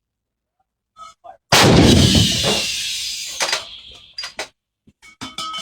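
105mm howitzer firing a single round about a second and a half in: one sudden loud blast that rolls away over about two seconds. A few small clicks and knocks come before and after it.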